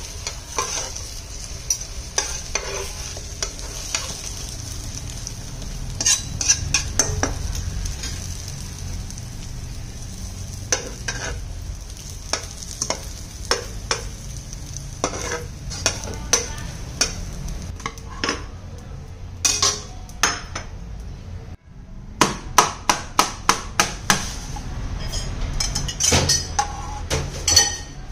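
Egg omelette sizzling in a frying pan while a metal slotted spatula and spoon scrape and tap against the pan. The sizzle stops about three-quarters of the way through, and a quick run of sharp clicks follows: the metal spatula knocking against a ceramic plate.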